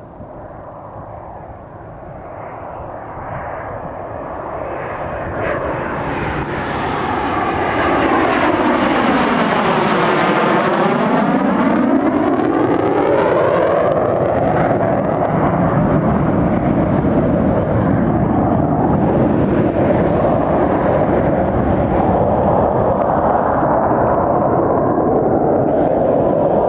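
Airplane engines growing louder as the aircraft approaches and passes close by, with a sweeping, phasing sound about ten seconds in, then staying loud and steady.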